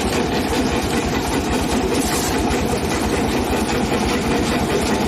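Engine of a heavy brick-breaking machine running steadily at a constant speed, with a fast, even low throb.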